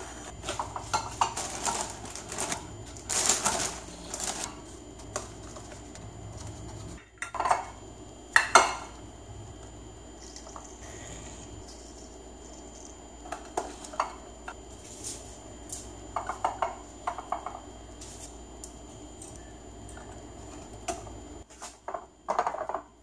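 Clinks and knocks of glass meal-prep containers and their plastic snap-lock lids being handled and set down on a granite counter, a string of scattered short clicks rather than a steady sound, with the lids being pressed shut near the end.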